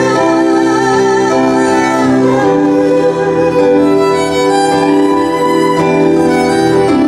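Violin playing a slow melody with vibrato over sustained, held accompaniment, an instrumental passage within a song.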